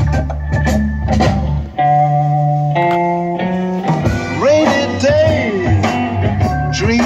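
Blues-rock music with electric guitar: a steady band groove, then held chords stepping through changes about two seconds in, then bending guitar lines from about four seconds.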